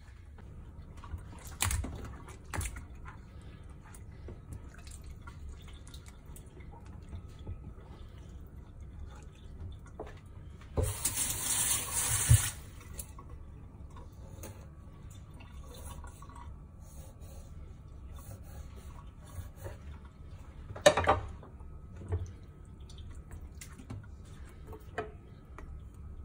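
Kitchen tap water running for about two seconds near the middle, the loudest sound here. A few short knocks and clatters from a knife and fish being handled on a wooden cutting board come before and after.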